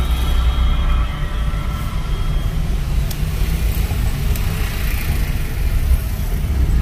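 Steady low rumble of road traffic and a car's engine, heard from inside a car in slow, congested traffic.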